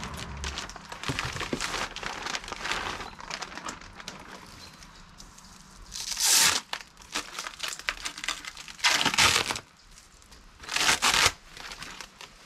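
Plastic packaging crinkling and rustling as a shock absorber is unwrapped, with three short, loud rips of tearing plastic in the second half.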